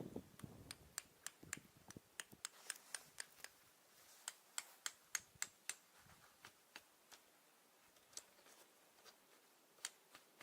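Faint, sharp, irregular clicks and ticks, a few a second, thinning out in the second half.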